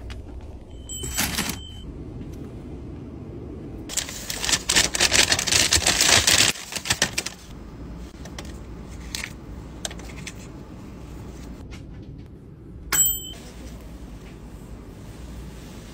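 Handling sounds of a roasted sweet potato being taken from a heated-stone warmer with metal tongs and then peeled by hand, with brief ringing clinks twice. About four seconds in comes a loud burst of rapid crackling clicks lasting a couple of seconds.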